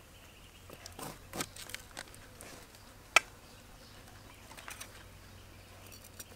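Large cleaver-style knife cutting into the spiky rind of a whole jackfruit: scattered short cutting sounds, with one sharp click a little after three seconds.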